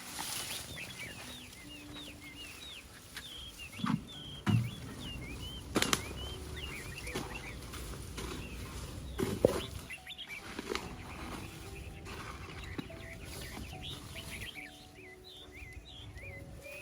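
Many small birds chirping continuously, with a few sharp knocks scattered through.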